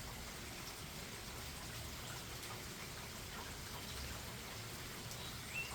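Steady rain falling, with scattered individual drops ticking and dripping.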